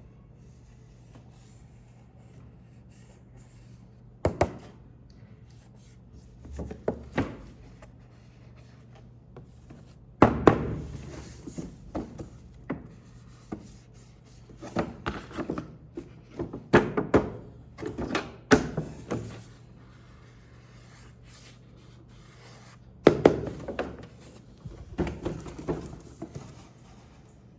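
Hands handling hard objects: bursts of knocks, taps and rubbing come and go in clusters, over a steady low hum.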